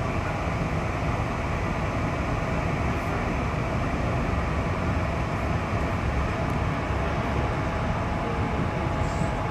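Interior running noise of an electric suburban commuter train pulling out of a station: a steady rumble of wheels and motors, with a faint steady whine through it.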